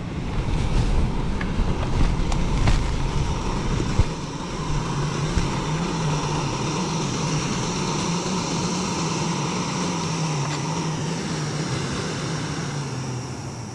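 Gas canister stove burning under a steaming metal pot, a steady roar, with a few light knocks in the first four seconds. The roar fades away near the end.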